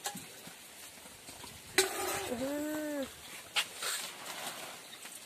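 Wood bonfire burning, crackling with sharp pops and snaps, the loudest about two seconds in. Just after it, a short animal call that rises and then falls in pitch.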